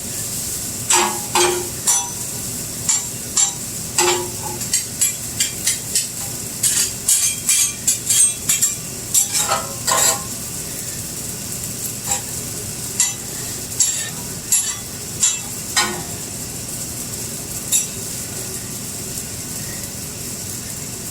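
Fried rice sizzling on a hot flat-top griddle after a splash of soy sauce. A cooking utensil scrapes and clacks against the griddle in many quick strokes as the rice is stirred. Near the end the strokes mostly stop and only the steady sizzle remains.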